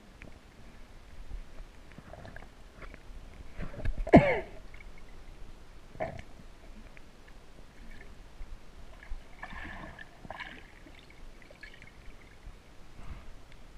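Muffled underwater sound heard through a submerged camera's housing: faint water movement with scattered small clicks and knocks. About four seconds in comes a loud gurgle that falls in pitch.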